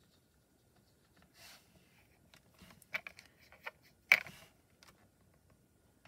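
A paintbrush clicking and tapping against a small plastic paint palette several times, the loudest tap about four seconds in, with soft brush strokes on paper around it.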